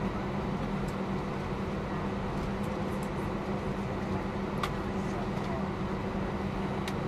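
Airbus A320 jet engine running at taxi power, heard from inside the cabin: a steady drone with a constant whine on top. A couple of faint clicks come near the end.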